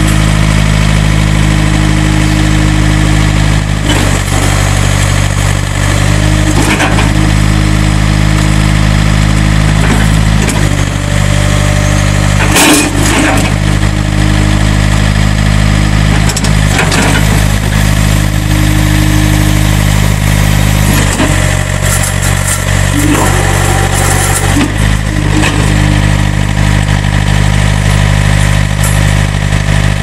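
2005 John Deere 110 tractor loader backhoe's diesel engine running steadily as the front loader is raised and the bucket tilted, its note changing every few seconds as the loader hydraulics work. Several short knocks come through, the loudest about twelve to thirteen seconds in.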